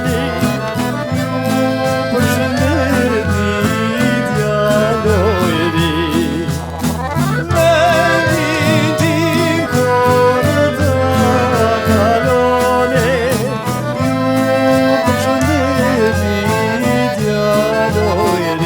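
Albanian folk dance music from a live ensemble: a melody with vibrato over a steady drum beat.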